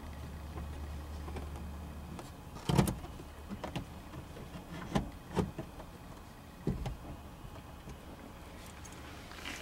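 Sharp plastic knocks and clicks as a Dodge Caravan's instrument cluster is pressed back into its dash opening: half a dozen separate knocks, the loudest about three seconds in. A low steady hum stops about two seconds in.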